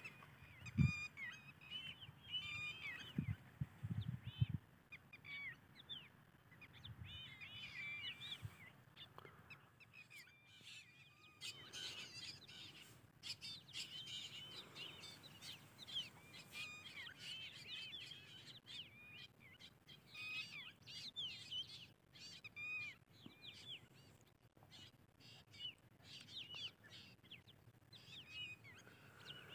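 Small birds chirping, many short overlapping calls that rise and fall, faint throughout. A few low thumps on the microphone in the first five seconds.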